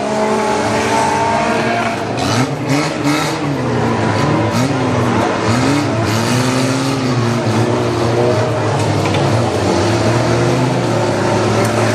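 Several fun car racing engines running and revving at once, their pitches rising and falling as the drivers accelerate and lift off, over a constant low engine drone.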